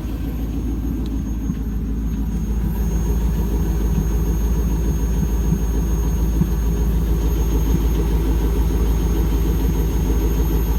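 1998 Chevrolet Camaro Z28's LS1 V8 idling steadily through a Borla muffler, with a ticking/tapping that the owner suspects is a lifter or rocker arm, on an engine that also has an exhaust leak at the headers and a cylinder 1 misfire code.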